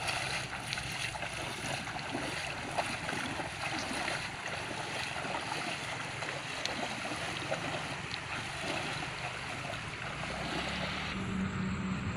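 Two people wading through shallow, muddy water, their feet splashing in a steady run of splashes that die away near the end.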